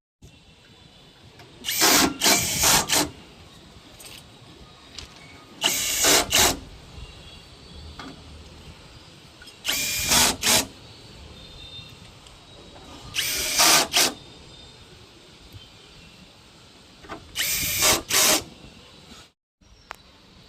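Power drill run in five short bursts about four seconds apart, each a second or so long and made of two or three quick pulls of the trigger.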